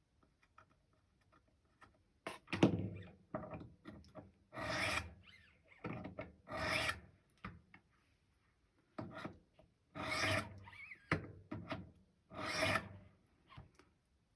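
Knife edge of Cruwear steel being drawn over a 200-grit sharpening stone in light trailing passes to knock off the burr: a series of rasping strokes, irregularly spaced, beginning about two seconds in.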